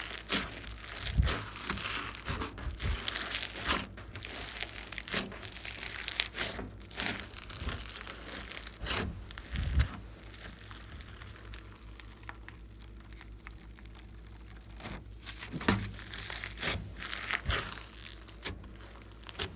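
Glossy slime being squeezed and kneaded by hand: irregular sticky crackles and pops, quieter for a few seconds in the middle.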